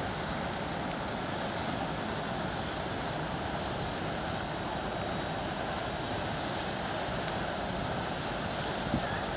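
Steady rushing outdoor noise of wind and river water, with no distinct engine note.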